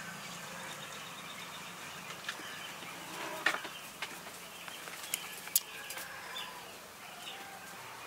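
A flock of broiler chickens chirping and clucking, with scattered sharp clicks and a steady low hum underneath.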